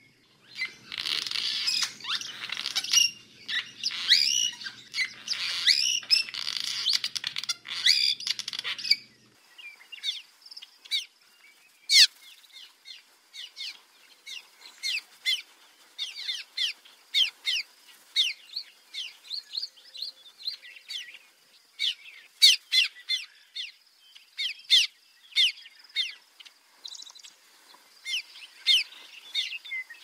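Cliff swallows calling. For about nine seconds there is a dense, overlapping chatter, then it changes suddenly to a steady run of short, sharp, downward-sliding calls.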